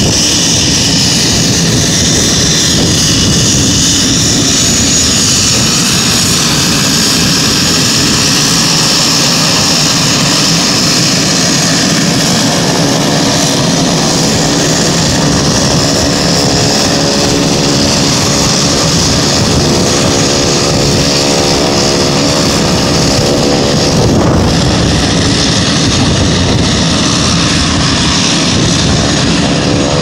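A Pilatus PC-12's single Pratt & Whitney PT6A turboprop running steadily at taxi power, with a loud, high turbine whine. About halfway through, a low, even, rhythmic beat joins it.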